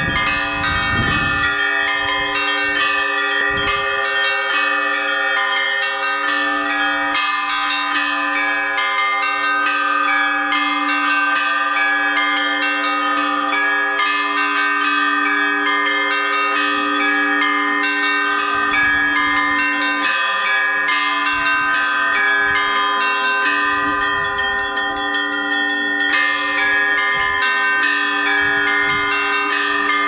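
Russian Orthodox church bells rung by hand from an open belfry. Ropes pull the clappers of a row of small bells while a foot pedal works the largest bell, giving an unbroken peal of overlapping ringing tones.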